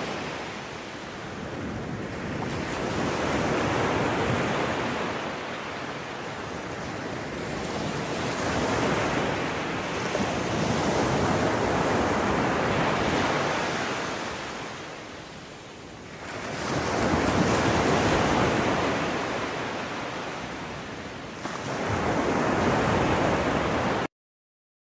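Sea water splashing and surging against the side of a boat, churned by a large stingray thrashing at the surface, swelling and fading every few seconds, with wind buffeting the microphone.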